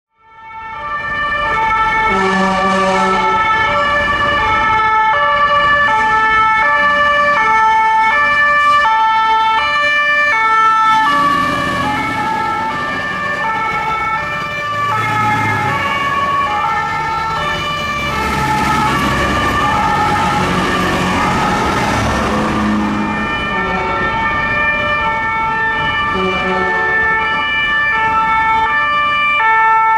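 Fire engines' Swiss two-tone sirens sounding continuously, the pitch stepping back and forth between two notes. Heavy engine and road noise swells under it in the middle as a truck passes close.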